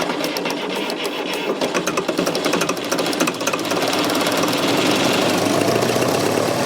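Fordson Super Major backhoe's 3.6 L four-cylinder diesel running with a fast, even clatter. From about halfway through it runs a little louder and steadier, with a faint whine over it.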